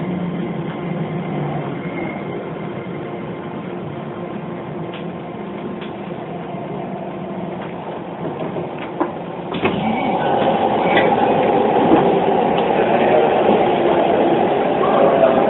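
Running sound of a Hokuso 7500-series electric train with a Toyo Denki IGBT inverter: steady motor and inverter tones over wheel-on-rail noise. It turns louder and rougher about ten seconds in.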